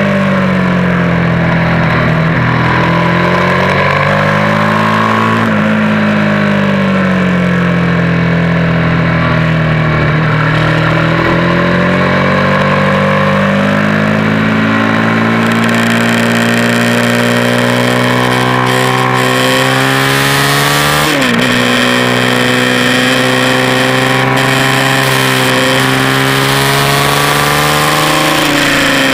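Engine of a track-day race vehicle heard onboard at speed, its note rising and falling over several seconds at a time. The pitch climbs slowly, dips sharply about 21 seconds in, then climbs again. Wind rush grows louder from about 15 seconds in.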